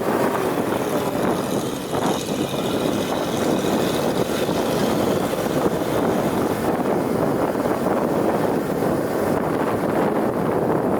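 GAZ-66 off-road truck under way, its engine and running noise a steady rumble.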